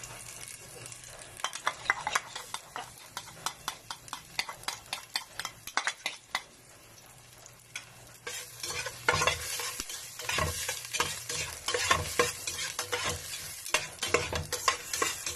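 Onions and garlic frying in hot oil in a stainless steel pot, sizzling, with a utensil scraping and clicking against the pot as they are stirred. About eight seconds in, the sizzling and stirring get louder and busier.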